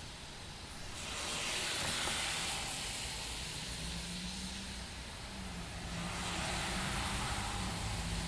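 Cars driving past on a wet road, their tyres hissing through water. One pass swells about a second in and fades, and a second builds near the end over a low engine hum.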